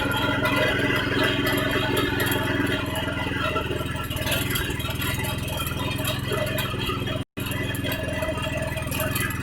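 Small petrol engine of a peanut grinding machine running steadily.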